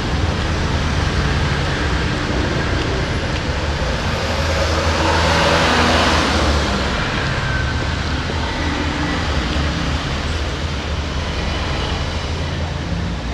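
Road traffic running steadily, with low engine hum; one vehicle passes close about halfway through, its sound swelling and then fading.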